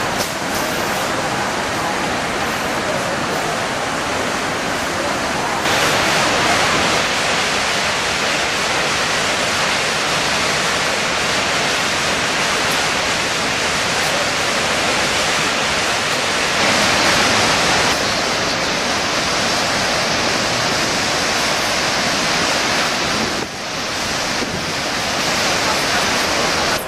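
Waterfalls of Iguaçu Falls thundering: a dense, steady rush of falling water. It steps up louder and brighter about six seconds in and changes level abruptly twice more later on.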